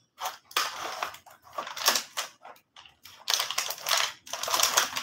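Plastic wrapping and a cardboard box crinkling and rustling as a knife is pushed back into its packaging, in irregular bursts with a short pause about three seconds in.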